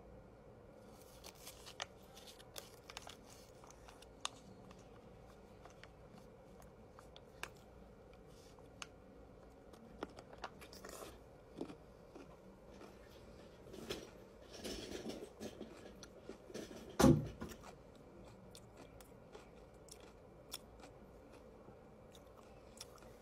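A person biting and chewing a crunchy sour pickle, with scattered crunches and small clicks. A short loud burst about two-thirds of the way through is the loudest sound.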